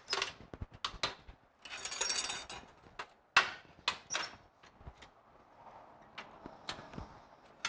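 Scattered metal clicks and knocks, with a short scrape about two seconds in, as a steel bumper wing is set on a steel welding table and clamped down.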